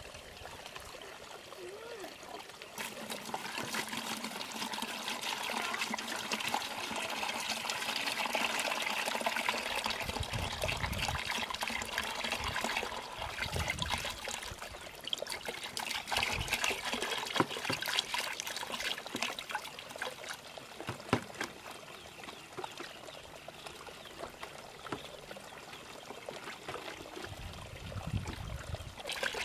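Muddy water pouring from a plastic jug into a plastic bucket partly filled with water, a steady trickle. It grows louder about three seconds in and eases off after about twenty seconds.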